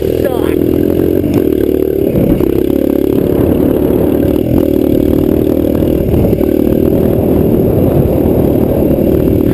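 Small vehicle engine running at a steady speed while riding, with rattling and clattering over the engine note.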